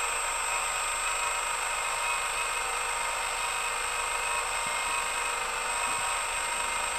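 Radio-controlled scale model Komatsu hydraulic excavator running: a steady high whine from its electric hydraulic pump, with several held tones and no change in pitch.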